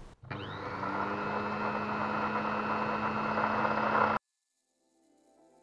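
Unimat SL 1000 mini lathe-mill running with an end mill in the spindle: a steady motor whine with a few fixed tones, growing slowly louder. It stops abruptly about four seconds in, and soft music fades in near the end.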